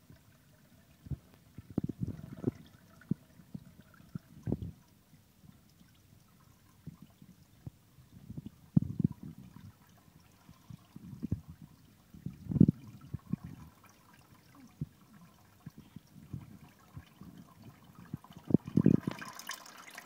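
A cat lapping water at a pet drinking fountain, in irregular bouts of wet laps, with the fountain's water trickling faintly between them. A brief rustle comes near the end.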